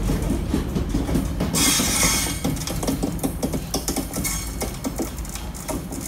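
Last container wagons of a freight train rolling past, their wheels clicking quickly over rail joints above a low rumble, with a short high hiss about a second and a half in. The clatter fades as the tail of the train draws away.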